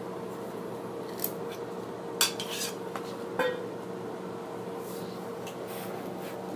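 Small heart-shaped metal tin box clinking as its lid and base are handled and set down: a handful of sharp metallic clicks within the first few seconds, one ringing briefly.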